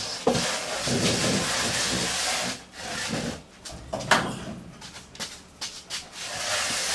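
A pickup truck box being dragged across the floor: a long scrape, then shorter scrapes, with a sharp knock about four seconds in.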